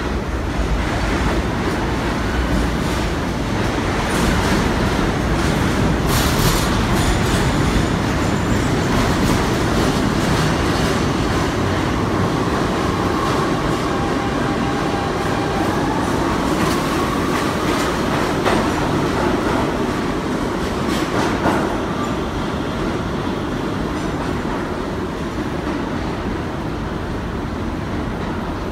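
Subway work train passing through an underground station: continuous wheel-on-rail rumble with clicks over the rail joints and a faint wheel whine in the middle, easing off near the end as the train clears.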